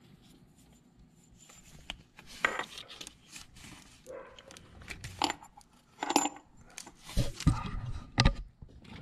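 Small metal clinks and scrapes of a homemade IPR tool, a collar cut from an impact socket, being worked onto the IPR valve of a 7.3 L Power Stroke diesel, with hand rustling in between. A few louder knocks come near the end.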